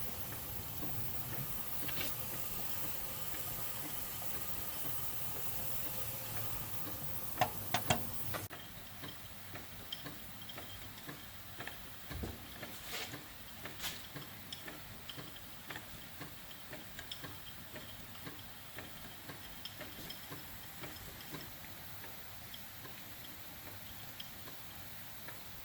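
A steady hiss from the steam boiler and burner, with a low rumble under it, stops abruptly about eight seconds in, just after a few sharp clicks. Scattered light ticks and clicks follow.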